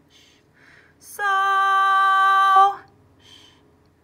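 A voice singing the solfège syllable "so" on one steady held note, about a second and a half long, as a half note in a sight-singing exercise. Before and after it come faint whispered "sh" sounds that mark the rests.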